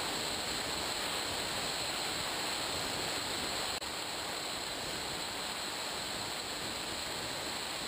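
Steady rush of air and a high whine from an electric pusher-prop FPV Raptor RC plane in flight, as heard by a GoPro mounted on the airframe. About halfway through there is a faint click and the sound drops slightly.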